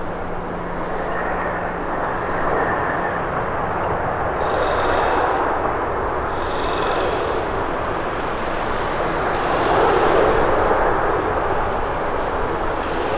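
Jet engine roar of a landing Airbus A350-900, its Rolls-Royce Trent XWB engines running as the airliner touches down and rolls out, swelling to its loudest about ten seconds in.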